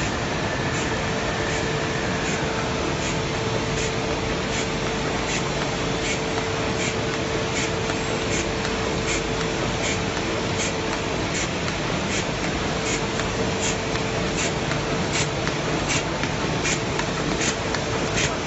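High-speed draw-tape plastic bag making machine running: a steady mechanical hiss and hum, with a sharp click repeating about twice a second and a faint steady tone that fades out near the end.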